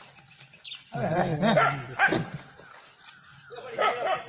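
Dogs barking and yelping in two bouts of quick calls, about a second in and again near the end.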